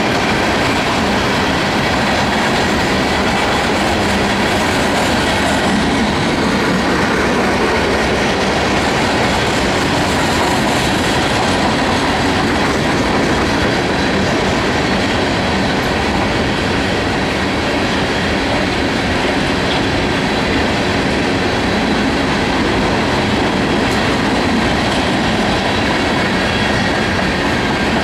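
Coal train's open-top hopper cars rolling past at a steady speed, their steel wheels on the rail making a loud, even noise.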